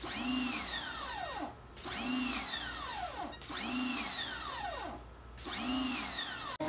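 Electronic outro music: a synth tone with several stacked pitches rises and falls in four identical swoops, about one every second and three quarters.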